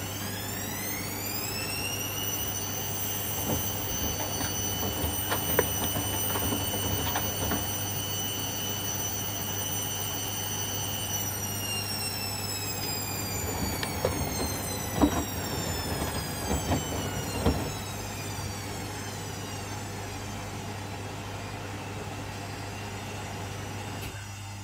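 Washing machine motor whining as the drum spins up quickly, holds speed for several seconds, then slowly winds down, with a few knocks from the drum as it slows, over a steady low hum.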